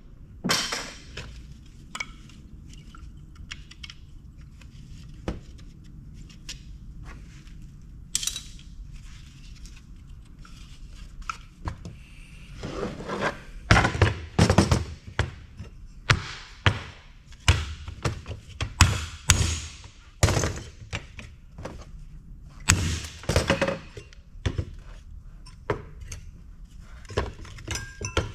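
Irregular knocks and clatter of hand dismantling, as heavy-duty plastic and sheet aluminum parts are handled and worked apart. Sparse at first, then busier and louder from about halfway through, over a faint steady low hum.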